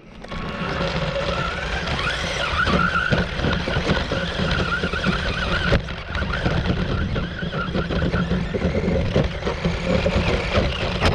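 RC car being driven, its motor whining and wavering up and down in pitch over a rough, continuous rumble. There is a sharp click about six seconds in.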